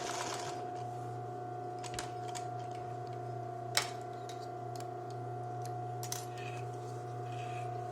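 Steady electric hum of the sewing machine's motor left running while the needle is stopped, with a few faint sharp clicks as the thread and fabric are handled.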